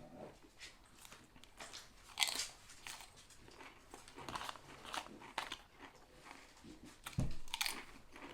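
Close-up chewing and biting on a sub sandwich, with irregular crunchy bites and wet mouth sounds. A soft low thump comes about seven seconds in.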